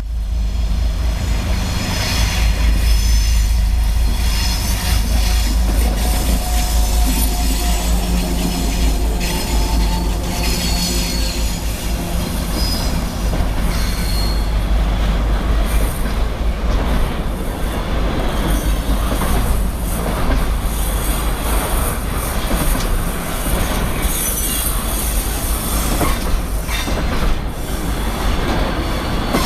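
2M62U twin-section diesel locomotive passing with a freight train: a heavy, steady diesel drone for the first dozen seconds, then the wagons' wheels clattering over rail joints with intermittent high wheel squeal.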